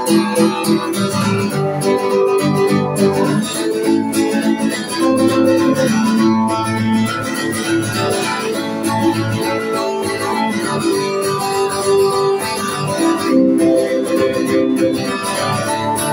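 Acoustic guitar strummed in steady repeated chords, the instrumental opening of a song before the vocals come in.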